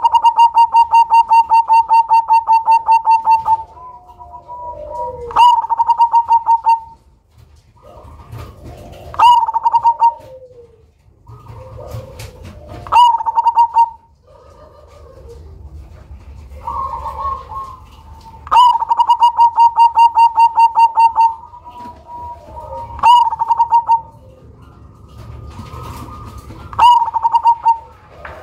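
Zebra dove (black cemani perkutut) cooing loudly. Its song comes as bursts of rapid, evenly spaced staccato coos repeated every few seconds, the longest running about three seconds. Softer, lower, falling calls sound between the bursts.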